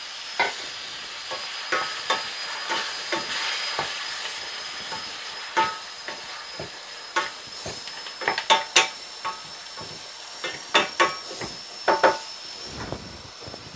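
Mutton pieces and onions sizzling in a stainless steel pan while a wooden spatula stirs them, knocking and scraping against the pan; the clatter comes thickest in the second half.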